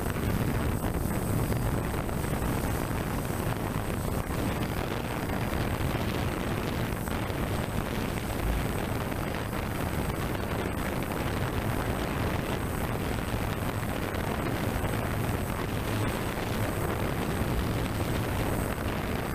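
Steady rushing noise from a DJI F550 hexacopter's rotors and their downwash buffeting the microphone of the camera it carries, as it hovers and descends slowly.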